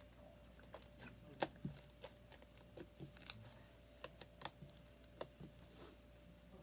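Slime being squeezed and worked by hand, giving faint, irregular clicks and crunches, the loudest about a second and a half in.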